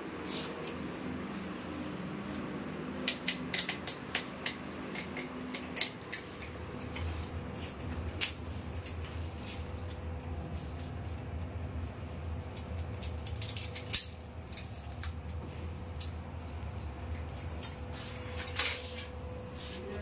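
Scattered sharp clicks and light scrapes from hand work with a snap-off utility knife and the peeled backing of a double-sided-tape velcro strip on a window frame, bunched early on, with a louder single click later. A steady low hum comes in about a third of the way through.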